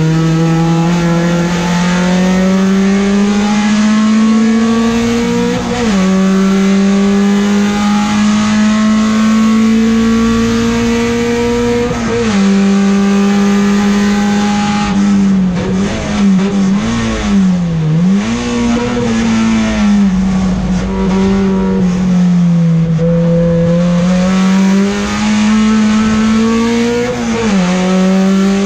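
A Peugeot 405 STi race car's four-cylinder engine, heard from inside the cockpit under hard acceleration. Its pitch climbs through the gears, with upshifts about six and twelve seconds in. Around sixteen to nineteen seconds in it dips and rises through downshifts for a corner, then it pulls up again and shifts once more near the end.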